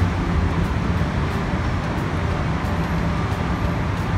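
Steady low rumble of vehicle and traffic noise.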